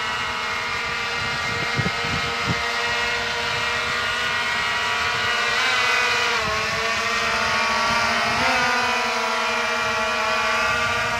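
EHang Ghost 2.0 quadcopter's motors and propellers whining steadily as it comes down, the pitch dipping and recovering about six seconds in and again a little after eight seconds. Two soft thumps about two seconds in.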